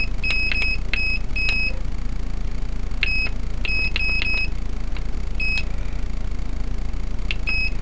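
Turnigy 9X radio transmitter beeping as its keys are pressed: short, identical high-pitched beeps, each with a faint click, coming singly and in quick clusters as the characters of a model name are scrolled through and selected. A steady low hum runs underneath.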